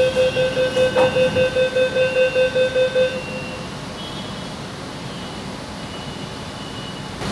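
Metro train door warning tone beeping rapidly, about four to five beeps a second, as the sliding doors open; it stops about three seconds in, leaving the steady hum of the stopped carriage.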